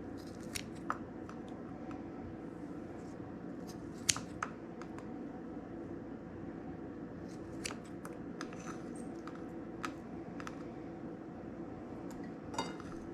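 Scissors snipping food into small pieces: scattered sharp snips and clicks, a second or several apart, over a steady low hum.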